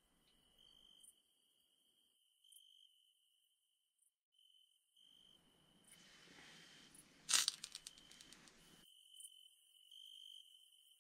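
Faint chirping of crickets, short high pulses repeating through the night quiet. Some rustling of handling comes in about five seconds in, with one sharp click followed by a few quick ticks at about seven seconds.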